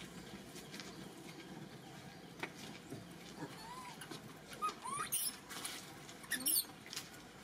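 Baby macaque giving a few short, faint squeaks that arch or rise in pitch, about halfway through and again a little later. Two brief, sharp scratchy noises near the end are louder.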